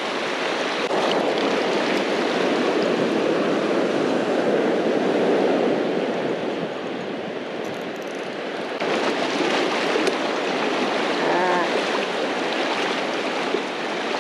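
Surf washing in and out across shallow water at the shoreline: a steady rush of foaming waves that swells over the first several seconds, eases off around seven to nine seconds in, then rises again as the next wave comes in.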